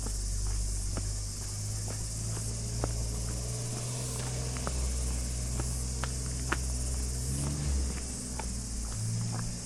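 A steady, high-pitched chorus of insects in the bush, with footsteps crunching on a gravel track one or two a second and a low rumble beneath.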